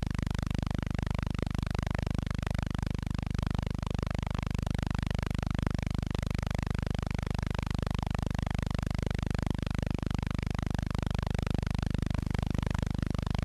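Steady low hum with hiss over it, unchanging throughout and with no events. The film carries no recorded sound, so this is only the background noise of the silent film's transfer.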